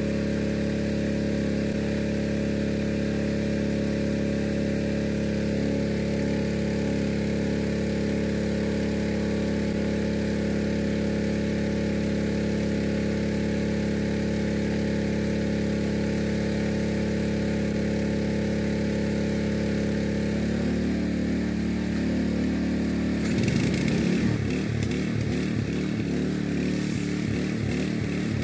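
Small gasoline engine driving a water pump for jet-drilling a well, running steadily. About 20 seconds in its tone shifts, and a few seconds later it runs rougher with a pulsing beat.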